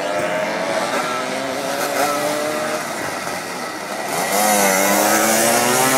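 Engines of small vintage motorcycles running as the bikes ride past one after another; about four seconds in, one comes close and gets louder, its pitch bending up and down.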